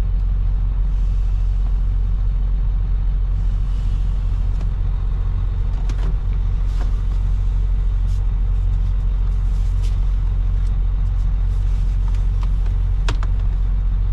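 Semi-truck tractor's diesel engine running with a steady low rumble, with a few light clicks about six and thirteen seconds in.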